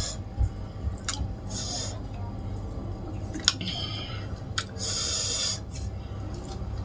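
Fingers pulling apart crispy deep-fried catfish on a banana leaf: three short bursts of dry crackling, with a few sharp little clicks.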